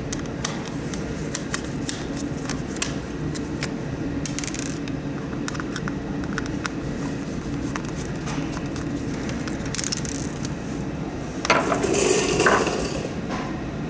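Light clicks and scrapes of small plastic and metal parts being handled while a humidifier is taken apart, over a steady low hum. A louder scraping rustle comes about eleven seconds in.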